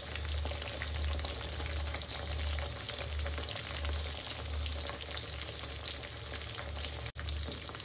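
Rohu fish pieces shallow-frying in hot mustard oil in a kadhai: a steady sizzle and crackle, with a low hum underneath.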